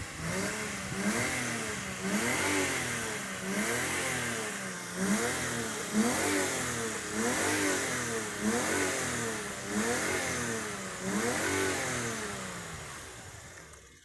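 Toyota 1G-FE inline-six engine being revved in repeated blips, about ten times, each rise and fall in pitch taking roughly a second. The engine is worn: it is shaking on a weak fourth cylinder that measured about 5 on compression, and it blows oil smoke out of its breather.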